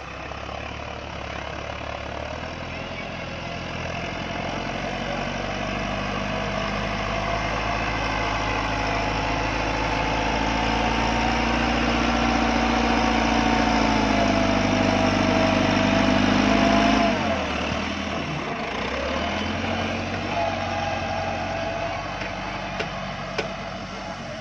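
Massey Ferguson 385 tractor's diesel engine running, growing louder over the first quarter-minute. About seventeen seconds in, the engine note dips and falls away briefly, then steadies again.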